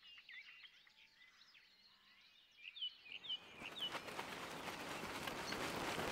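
Woodland birds singing faintly, with chirps and a few short falling whistles. About three and a half seconds in, a plastic tarp starts to be handled, rustling and crackling more and more loudly as it is shaken and folded.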